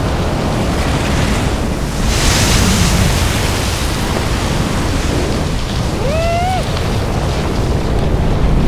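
Steady rushing wind. A louder hiss comes about two seconds in, and a short rising whistled call about six seconds in.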